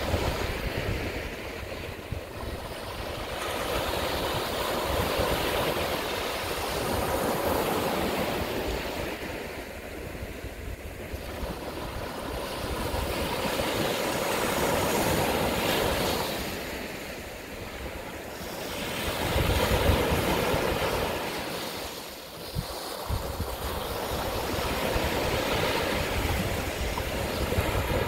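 Ocean waves breaking and washing up the beach, the surf swelling and fading every five or six seconds, with wind rumbling on the microphone.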